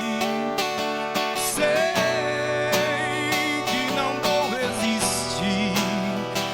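Instrumental introduction to a sertanejo love song, with plucked guitar-family strings and sustained melody notes playing steadily before the vocals start.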